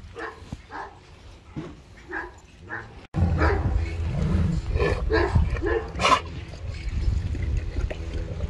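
Kangal shepherd dogs calling to each other through a wire fence with short barks, yips and whines, quieter before a cut about three seconds in and louder after it; the loudest call comes about six seconds in.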